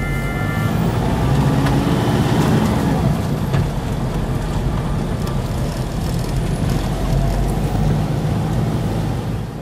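Off-road vehicle driving, with its engine and road noise running steadily and a few short knocks and rattles.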